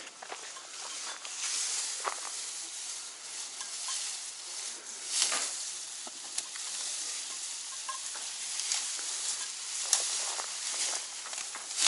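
Asian elephants rustling and crackling dry straw as they feed at the fence. It is a steady dry crackle with sharp snaps now and then, loudest about five and ten seconds in.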